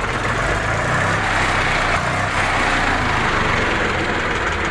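Swaraj 735 FE tractor's three-cylinder diesel engine idling steadily.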